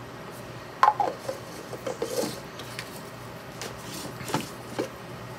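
Knocks and clicks of a handmade egg-shaped deck box's pieces being handled, pulled apart and fitted back together, with a short scraping rub about two seconds in. The loudest knock comes just under a second in.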